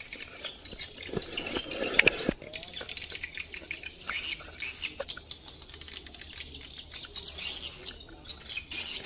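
Small birds chirping and twittering outdoors, with scattered clicks and rustles over them; a couple of sharp knocks about two seconds in are the loudest sounds.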